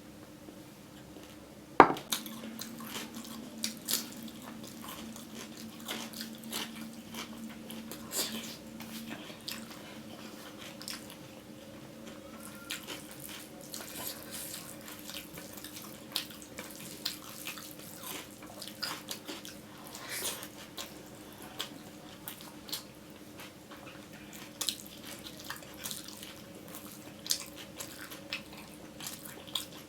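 Wet eating sounds: close-up chewing and smacking of curry and rice, made up of irregular moist clicks. A single sharp knock comes about two seconds in, likely a dish or utensil set down. A faint steady hum runs underneath.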